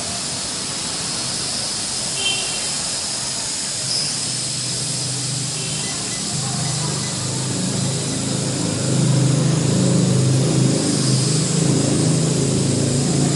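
Small L6036 toy quadcopter's motors and propellers buzzing steadily in flight, a hiss with a faint high whine over it. A lower hum swells about halfway through and stays louder.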